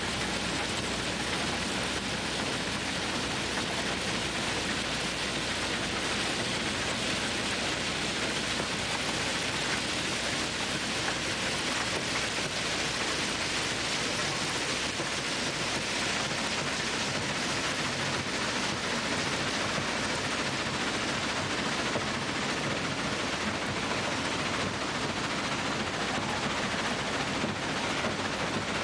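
Railway track ballast machine working, with crushed-stone ballast pouring out beneath it onto the track bed over the running machinery: a steady, dense rushing noise with no distinct knocks.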